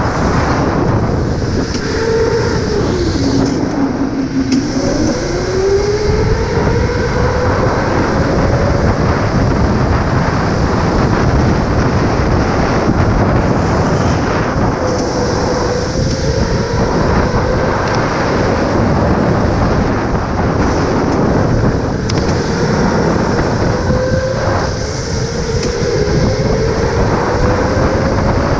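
Electric go-kart driving at speed: the motor's whine drops as it slows for a corner about three seconds in, then climbs again as it accelerates, dipping and rising twice more, over loud steady rattle and road noise from the kart.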